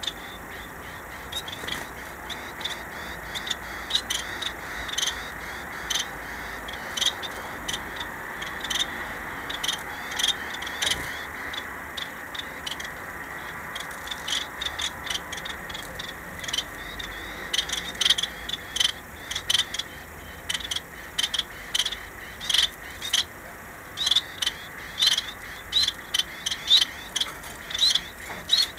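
Caged pet finches calling with short, sharp chirps, scattered at first and coming more often, about two a second, toward the end.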